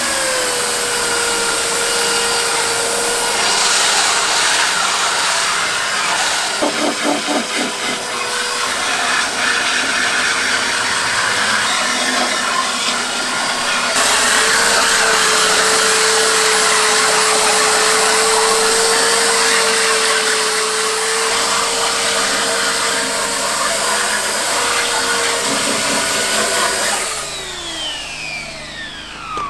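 Electric belt sander running against metal: a steady motor whine with a harsh scraping hiss, the pitch sagging now and then under pressure, then winding down near the end.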